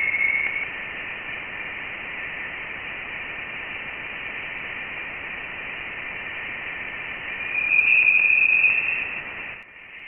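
Sonified plasma-wave data from Voyager 1 in interstellar space: a steady radio-like hiss with a thin high tone running through it. This is electromagnetic waves oscillating in the interstellar plasma, with charged particles hitting the spacecraft's instruments. The tone swells louder about eight seconds in, then the sound drops away just before the end.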